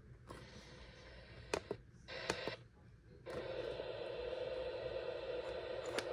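A few plastic button clicks on a First Alert SFA150 weather radio and a brief burst of noise, then from about three seconds in a steady hiss of static from its speaker: the radio is set to weather channel 1 and is not yet receiving a clear broadcast.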